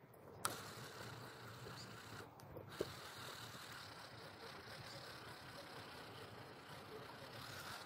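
Faint, steady outdoor background hiss with no clear source, broken by one sharp click about half a second in and a softer tick near three seconds.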